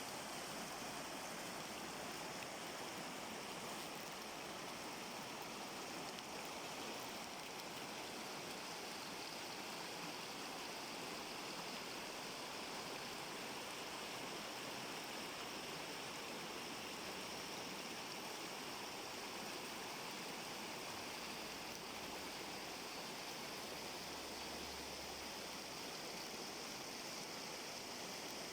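Mountain river rushing over rocks: a steady, even roar of running water.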